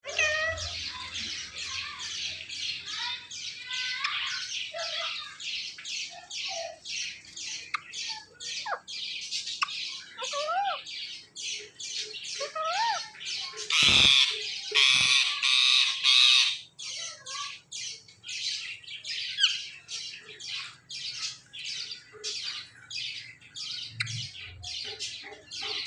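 Ringneck parrot giving short squawking calls over and over, about three a second, with a few sliding lower notes among them. About halfway through comes a loud, harsh screech lasting two to three seconds.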